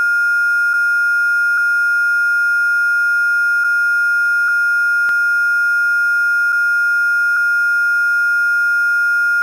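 A steady, high-pitched electronic sine tone held at one pitch without a break, with a few faint ticks and one sharp click about five seconds in; it cuts off suddenly at the end.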